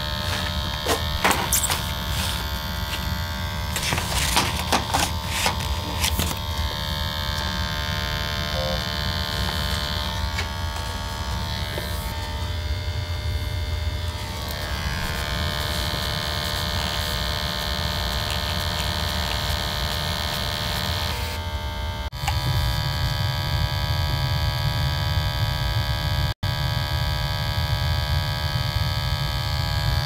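Testo 320 combustion analyzer's sampling pump buzzing steadily while it draws flue gas, over the low rumble of a gas water heater's burner firing. A few knocks from handling the probe come in the first few seconds, and the rumble grows louder about two-thirds of the way through.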